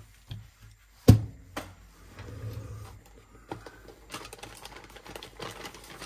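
Nylon cable ties being pulled tight around a bundle of wires: quick runs of ratcheting clicks, strongest in the last couple of seconds, with one sharp snap about a second in.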